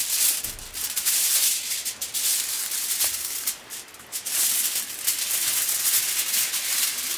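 Aluminium foil crinkling and rustling as it is handled. The crackly noise comes in uneven surges, with a short lull about four seconds in.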